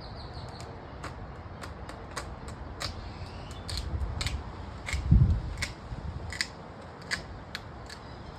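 Dead tree branch wood cracking in a series of short, sharp clicks at irregular spacing, about two or three a second, as it is bent by hand to break it off, with one dull thump about five seconds in.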